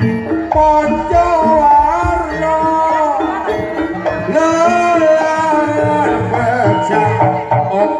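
Live jaranan music from a Javanese ensemble: drums and gamelan instruments keep a steady rhythm under a sliding, wavering melody line with singing.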